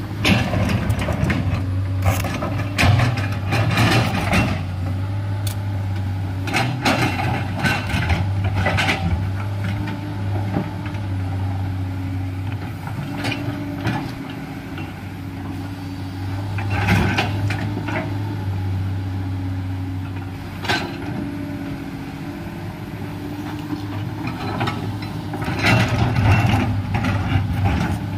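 Komatsu crawler excavator's diesel engine running steadily under load while the steel bucket digs into a bank of earth and rock. Repeated bouts of scraping and knocking come from the bucket teeth striking and dragging through stones.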